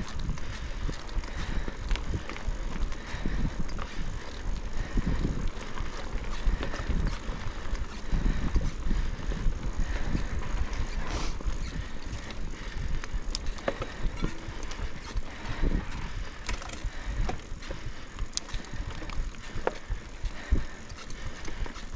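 Cross-country mountain bike riding over a dirt trail, heard from a camera mounted on board: a steady low rumble of tyres and wind with scattered clicks and rattles from the bike.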